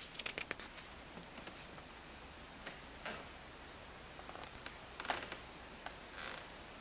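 Quiet room tone with scattered faint clicks and ticks: a quick run of them right at the start, then a handful of single ticks spread through the rest.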